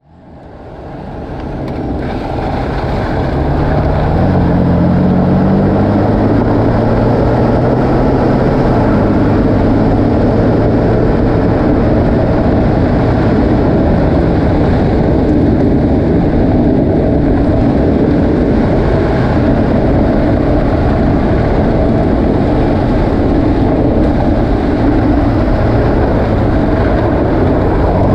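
BMW M4 Competition driving on an unpaved road: a steady rush of tyre and road noise over its twin-turbo inline-six, whose pitch climbs over the first several seconds, then drops and holds steady. The sound fades in over the first two seconds.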